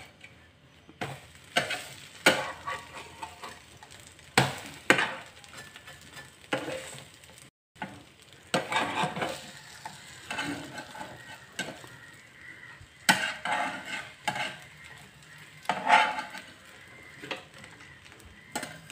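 Stainless steel spatula scraping and tapping against a nonstick frying pan as egg-soaked bread slices are turned over, in a series of separate clicks and scrapes, with a faint frying sizzle underneath.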